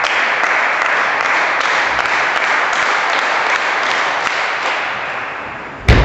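Spectators applauding a won point in a sports hall, the clapping slowly dying away. Near the end comes a single loud thump.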